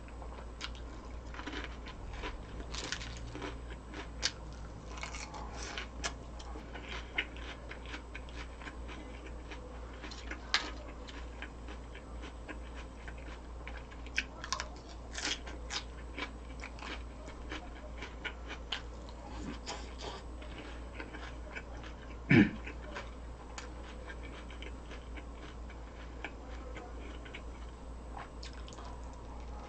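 Close-up eating sounds: crisp food being bitten and chewed, with many short scattered crunches, and one louder thump about 22 seconds in.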